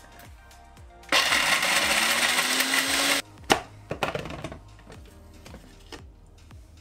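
Electric spice grinder grinding almonds to powder in a burst of about two seconds, its motor note rising as it spins up, then cutting off suddenly. A few sharp knocks follow, over background music.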